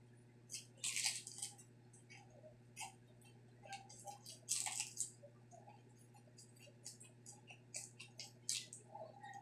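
Crisp deep-fried pork intestine being bitten and chewed close to the microphone. Loud crunches come about a second in, near the middle and near the end, with smaller crackles and mouth clicks between, over a steady low hum.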